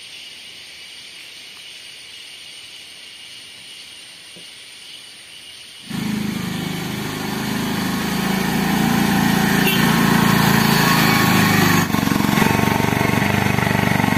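A steady high hiss with a thin high whine, then about six seconds in a sudden change to a loud, rough motor running.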